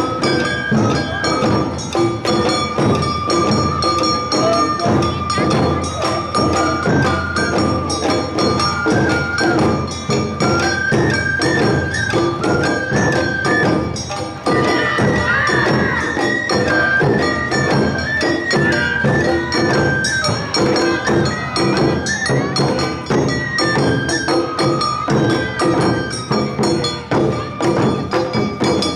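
Live Awa odori narimono band playing: a high shinobue flute melody over a fast, steady beat of taiko drums and the bright clanging of the kane hand gong.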